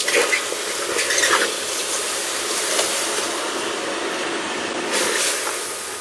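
Red-hot tin bronze ingots in a steel cake pan hissing and sizzling as they are quenched in a bucket of water, a steady steam hiss that eases off near the end.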